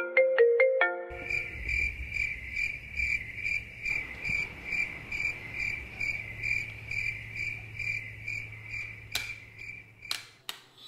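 A short marimba-like ringtone melody ends about a second in. Then a cricket chirps steadily, about two and a half chirps a second, over a low hum, with a few sharp clicks near the end.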